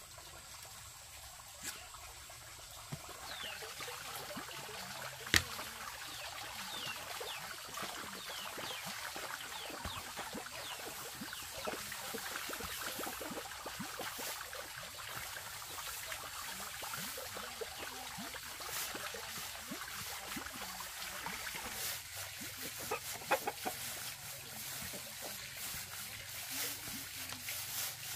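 Chickens clucking and cheeping, a scatter of short calls, with one sharp knock about five seconds in.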